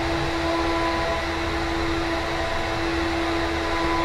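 CNC router running, its spindle turning a 30-degree engraving bit as it finishes cutting script lettering: a steady whine over an even rushing noise.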